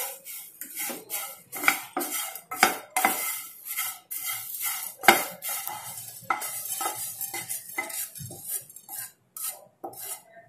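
A wooden spatula stirring and scraping dry-roasted thin poha (flattened rice) in a nonstick pan, then pushing the flakes off the tilted pan onto a glass plate. The result is a run of irregular scraping and clattering strokes.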